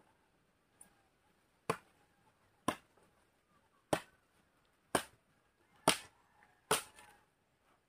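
Machete hacking into a wooden pole: about six sharp chops, roughly one a second.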